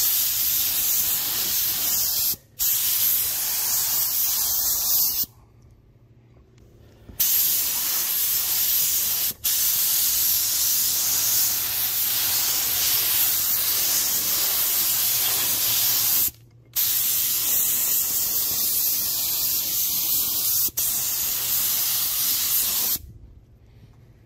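Gravity-feed paint spray gun hissing steadily as compressed air atomises epoxy primer, in long passes. The trigger is let off briefly about two and a half seconds in, for nearly two seconds around five seconds in, and briefly again after sixteen seconds, and the spraying stops about a second before the end.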